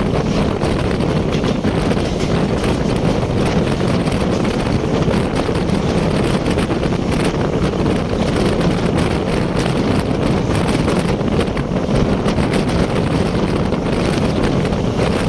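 Steady rumble of an ICF passenger coach running at speed along the track, heard at an open window with wind rushing over the microphone.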